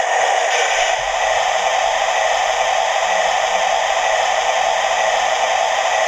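Steady steam hiss played by the Hornby TTS digital sound decoder of a model BR Class 8 4-6-2 Duke of Gloucester, through the model's small speaker. A faint low hum joins about a second in.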